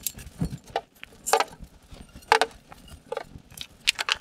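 Lengths of steel rectangular tubing being set down and shifted on a work table: a series of separate knocks, the two loudest about a second and two seconds in, then several lighter clicks near the end as short pieces are handled.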